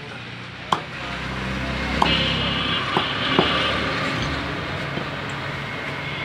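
A large butcher's knife striking a wooden log chopping block about four times, sharp single knocks spread over a few seconds. Under them runs a low rumbling background noise that swells about half a second in, with a brief high whine in the middle.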